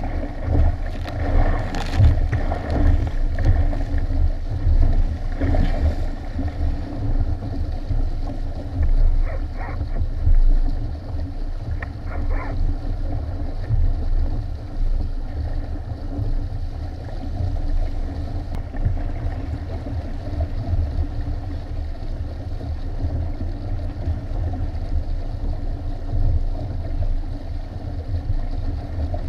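Water rushing and splashing along the hulls of a Hobie sailing kayak under sail, over a heavy, gusting rumble of wind on the microphone. A few louder splashes stand out in the first several seconds.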